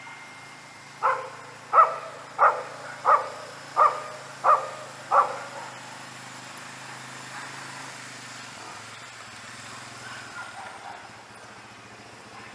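A dog barking seven times in a steady series, about one and a half barks a second, then stopping. A faint steady low hum runs underneath.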